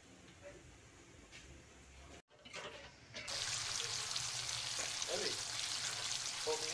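Minced garlic sizzling in melted butter in a wok while a metal spoon stirs it. The sizzling starts about three seconds in and then holds steady.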